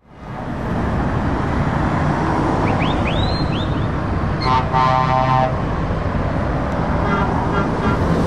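Heavy trucks and cars driving past on a main road, a steady rumble of engines and tyres. About halfway through a horn sounds once for about a second, with a few short rising chirps shortly before it.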